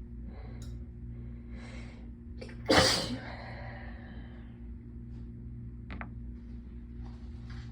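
A woman's single loud sneeze about three seconds in, after a couple of sharp breaths in, part of a sneezing fit brought on by being cold. A steady air-conditioner hum runs underneath, with a short click near six seconds.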